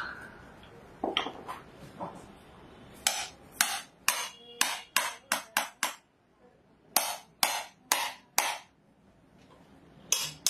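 Hammer striking a steel spike held on a small battery's plastic case, driving it in. About a dozen sharp metallic strikes come in quick runs, with a pause about six seconds in.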